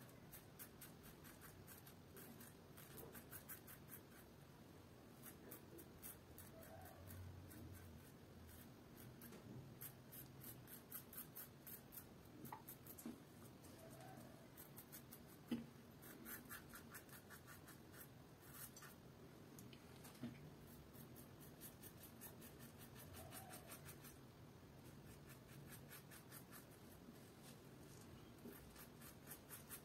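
Double-edge safety razor with a Ladas blade scraping through lathered stubble: a faint crackling rasp in runs of quick strokes with pauses between. One sharp knock comes about halfway through.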